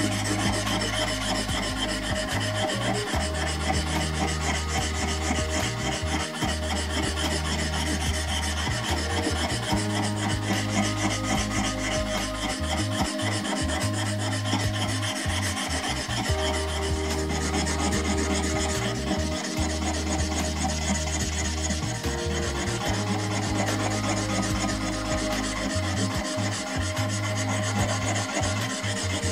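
A chisel blade rubbed back and forth on a small wet whetstone, making a continuous scraping grind of steel on stone as the edge is sharpened.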